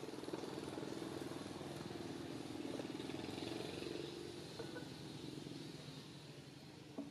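A motor vehicle engine running steadily with a low hum, loudest a few seconds in, then fading away. A short click near the end.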